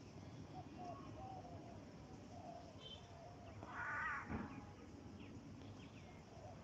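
Faint calls of birds, with one louder call about four seconds in and a soft knock just after it.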